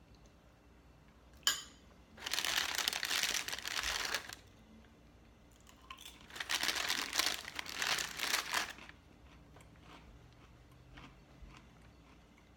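Crinkly plastic packaging rustled and crumpled in two bursts of about two seconds each as crackers are taken out of it, with a single sharp click just before the first burst.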